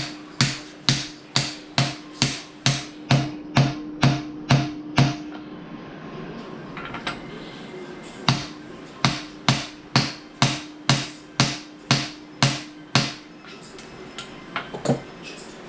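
Hammer tapping a part down into place on a rebuilt engine, about two even blows a second in two runs with a pause of about three seconds between them. A steady low tone hangs under each run of blows.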